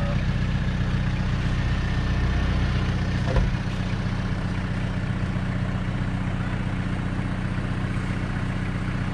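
A four-wheel-drive vehicle's engine running steadily at low revs, with a single knock about three and a half seconds in, after which the deepest part of the engine note drops away.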